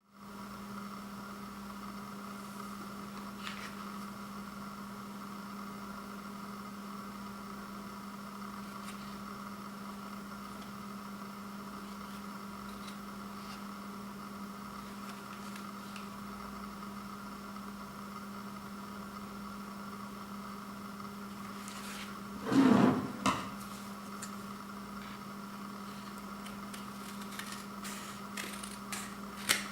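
A steady electrical hum with a low tone and a higher whine. About three-quarters of the way through comes a brief, loud rustling scrape, and several light clicks and taps follow near the end.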